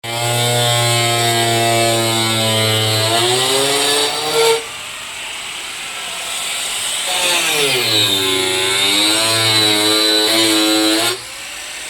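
A motor running with a strong pitched hum. Its pitch holds steady, rises and then cuts off sharply about four and a half seconds in. It starts again about seven seconds in, sags and climbs back, and drops off sharply again about eleven seconds in.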